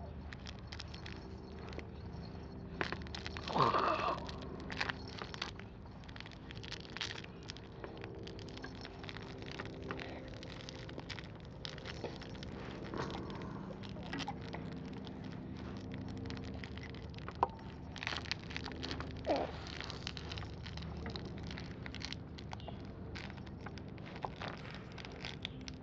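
Small crackling and rustling handling noises as a baby grabs and mouths a plush toy, over a steady low hum. A brief rising voice-like sound comes about 4 seconds in and again near 19 seconds.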